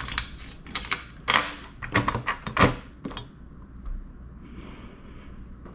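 Small metal washers clicking and clinking as they are fitted onto the bolts of a Hepco & Becker luggage rack's steel mounting plate: a run of short, sharp clicks over the first three seconds or so.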